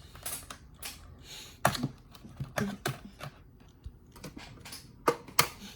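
A series of irregular light clicks and taps, about a dozen, unevenly spaced, like keys being tapped.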